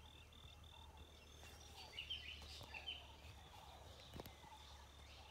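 Faint outdoor morning ambience: a high insect trill pulsing steadily, with a few short bird chirps about two to three seconds in.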